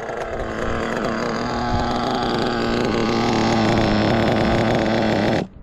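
New O.S. nitro two-stroke glow engine of an RC buggy running through break-in at the end of its fuel tank, a steady high-pitched buzz that gets slightly louder. It cuts off suddenly near the end as the engine is stopped.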